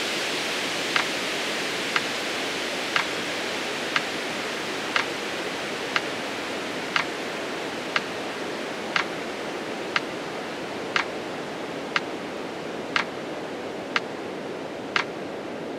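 Metronome ticking once a second, pacing a slow counted exhale for breathing practice, over a steady rushing hiss that slowly fades.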